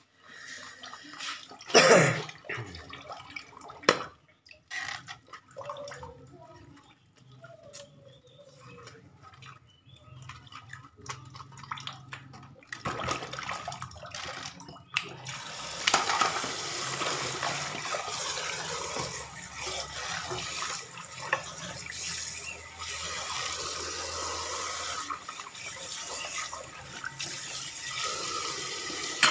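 Dishes being washed at a stainless steel kitchen sink: scattered clinks and knocks of plates and bowls, the loudest about two seconds in. About halfway through the tap is turned on and water runs steadily into the sink and over the dishes.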